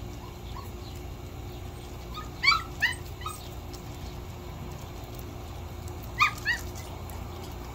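Sheepadoodle puppies, about four and a half weeks old, giving short high-pitched yips: three in quick succession about two and a half seconds in, then two more a few seconds later.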